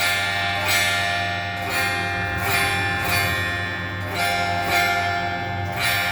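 Epiphone Les Paul Junior electric guitar strummed in chords, a stroke about every 0.7 seconds, with the notes ringing between strokes over a steady low hum.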